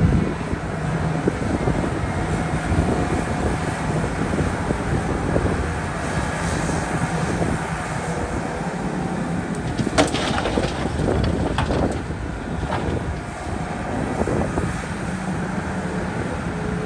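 Diesel engine of a working Volvo excavator running steadily under load, with a few sharp knocks about ten seconds in and again around twelve to thirteen seconds.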